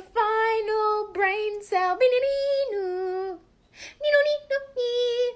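A high voice singing a slow tune alone, without accompaniment, in long held notes with a short break about halfway.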